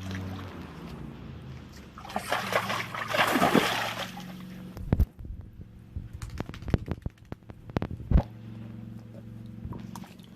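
Water sloshing and splashing in a foldable dog pool as a dog moves about in it, loudest from about two to four seconds in, followed by scattered knocks and taps.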